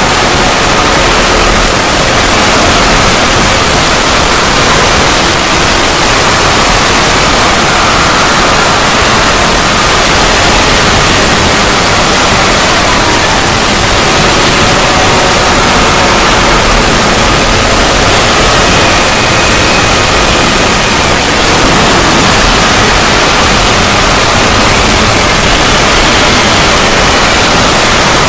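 Loud, steady static-like hiss filling every pitch, with faint high tones wavering through it: an edited 'void' logo sound effect.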